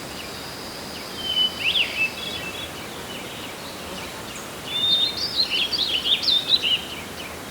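Songbirds singing in a forest: two bursts of quick, jumping chirps and warbles, one about a second in and a longer one past the middle, over a steady hiss of wind.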